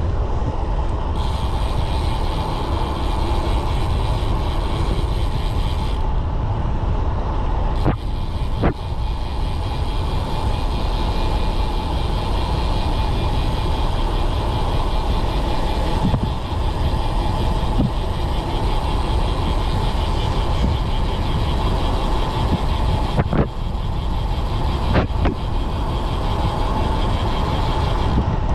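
Road bike being ridden: a steady rumble of wind and tyres on the road, with a mechanical rattle from the bike and a few sharp clicks or knocks along the way.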